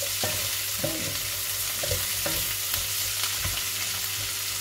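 Pork and vegetables sizzling in a hot frying pan while being stir-fried, with a wooden spatula scraping and knocking against the pan several times.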